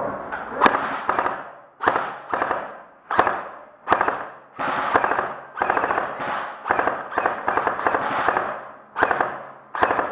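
Airsoft guns firing a run of short full-auto bursts, roughly one a second, each a rapid rattle of shots with a short echoing tail.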